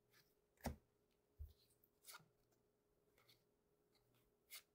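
Near silence with a handful of faint, brief taps and rustles of trading cards being handled and set down. The loudest is a soft knock just under a second in.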